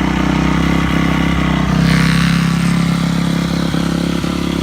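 2002 Yamaha YZ250F's 250cc four-stroke single running steadily through an FMF aftermarket exhaust, just after being kick-started while already warm. The engine note rises slightly about two seconds in.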